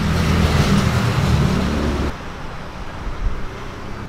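Street traffic: a motor vehicle's engine rumbling close by over road noise. It cuts off abruptly about two seconds in, leaving quieter steady street background.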